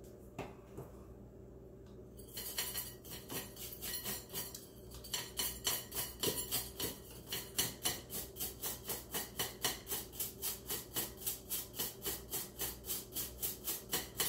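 Toothbrush loaded with toothpaste scrubbing gold jewelry on a plate: quick back-and-forth brushing strokes, about three or four a second, starting about two seconds in and getting louder.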